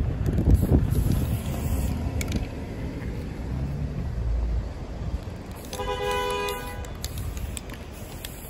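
Wind rumbling on the microphone for the first couple of seconds, then a car horn sounds once, a steady blast of about a second, some six seconds in.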